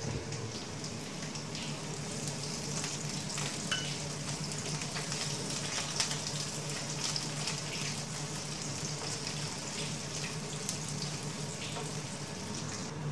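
Cut okra frying in hot oil in a nonstick pan: a steady crackling sizzle, stirred with a plastic spatula that gives a few light clicks against the pan. A low steady hum runs underneath.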